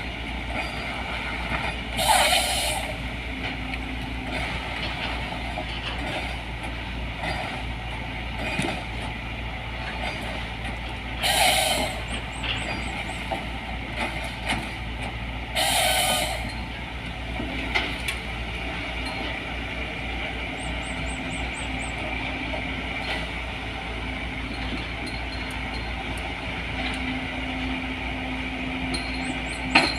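LiuGong 915E excavator with a harvester head, its engine running steadily, with three short, loud rushes of noise about two, eleven and sixteen seconds in, and a few lighter knocks.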